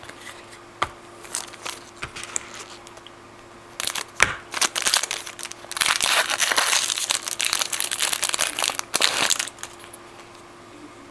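A trading-card pack's wrapper being torn open and crinkled by hand: a few light clicks and rustles, then dense crackling from about four seconds in until about nine seconds.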